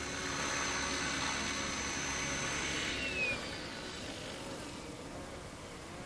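Radio-controlled helicopter's motor and rotor whining steadily as it flies close by; about three seconds in the high whine drops in pitch and fades to a lower, quieter hum as the helicopter comes down onto its landing pad, rotor still turning.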